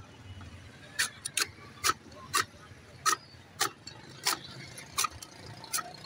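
Hand-lever sugarcane cutter chopping peeled sugarcane into pieces: about nine sharp chops of the blade onto the wooden board, starting about a second in and following roughly two a second.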